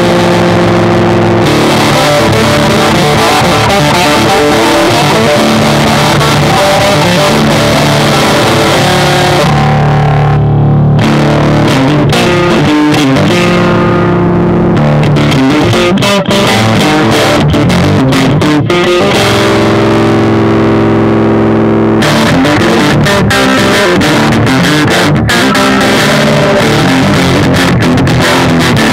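Electric guitar with Dialtone pickups, in drop tuning, played through an amplifier: heavy rock/metal riffing. Sustained chords give way to choppy stop-start riffs with sharp cut-offs in the second half.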